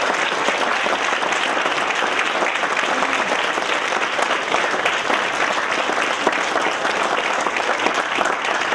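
Large audience applauding, a dense, steady clapping that holds level throughout.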